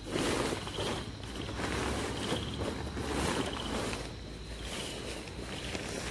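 Nylon tent fly rustling and crinkling in uneven bursts as it is handled and spread out during pitching.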